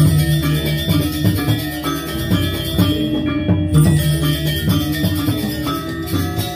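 Balinese gamelan music: bronze metallophones and gongs played in interlocking, pulsing patterns with drums.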